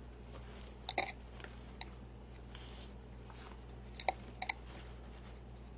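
A few faint crinkles and small clicks from hands working a wreath and its bow fastened with pipe cleaners: one about a second in and a cluster a little after the middle. A steady low hum runs underneath.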